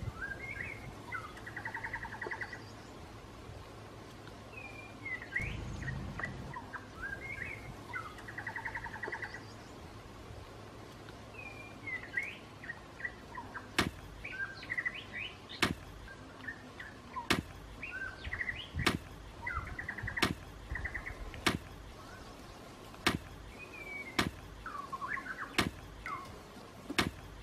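Wild birds singing throughout, with whistled up-and-down notes and short trills. About halfway in, sharp knocks start at roughly one every second and a half, the loudest sounds here: a bamboo pole being jabbed into the ground to dig.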